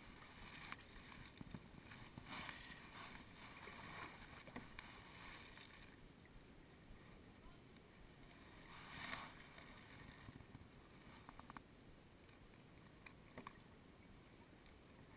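Faint sounds of a kayak paddle stroking through shallow water: a few soft swishes of water, with a few light clicks near the end.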